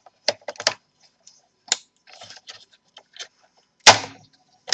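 Plastic snap clips of an HP Compaq Presario CQ61's black keyboard-surround cover popping loose as the cover is pried up: a string of sharp clicks and snaps, the loudest nearly four seconds in.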